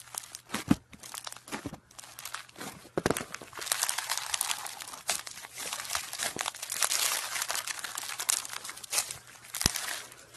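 Red foam-bead slime (floam) squeezed and kneaded by hand, the beads crackling and popping in crunchy clicks. The clicks are sparse at first and turn into a dense crackle from about three seconds in.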